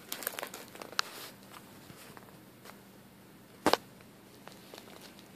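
Plastic zip-top bag of ice crinkling, with the ice cubes inside clicking, as a cat noses it, in a flurry over the first second or so. One sharp, louder knock comes about three and a half seconds in.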